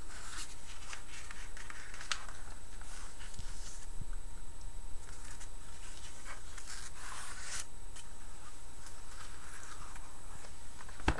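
Fingertips and nails rubbing and scratching over glossy magazine pages, with pages being turned, as a run of irregular papery swishes. A sharp click near the end is the loudest sound.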